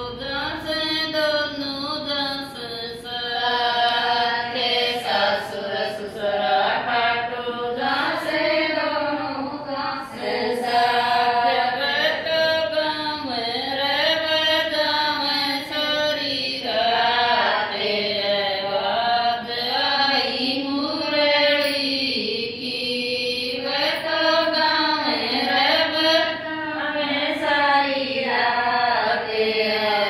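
Women singing a Hindi devotional bhajan to Khatu Shyam, a continuous sung melody with the pitch rising and falling from line to line.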